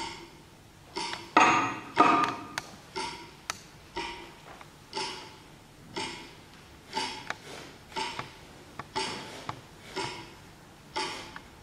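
Rhythmic metallic clanks, about one a second, each ringing briefly, with fainter ticks between them; two louder, longer clangs come a little over a second in.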